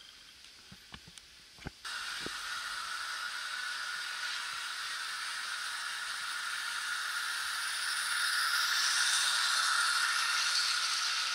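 Model train running on the layout track: a red diesel locomotive with a long car-transporter train, giving a steady whirring hiss of wheels and motor that starts suddenly about two seconds in and grows louder as the train comes close and passes. Before that, a few faint clicks.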